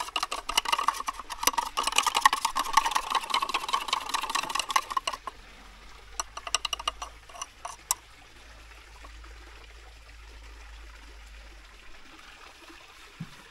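Varnish being stirred in its pot, the stick scraping and clicking against the container for about five seconds, followed by a few scattered taps.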